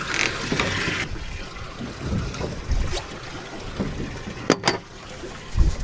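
Wind buffeting the microphone and water slapping against a small fishing boat's hull as it drifts at sea, with a brief hissing rush in the first second and a single sharp knock about four and a half seconds in.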